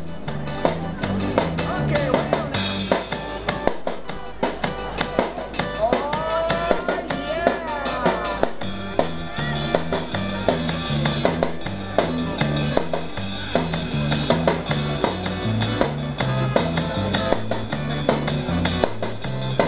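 Upbeat recorded music with a repeating bass line and guitar, with drums and cymbals on a small puppet-played drum kit beating along in time.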